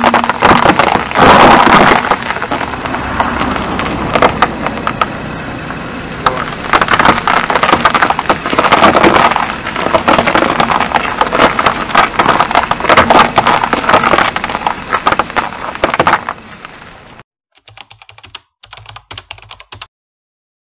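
Sugar cubes crunching and crackling under a slowly rolling car tyre: a dense run of sharp cracks that goes on for about sixteen seconds and then stops suddenly. Light computer-keyboard typing clicks follow near the end.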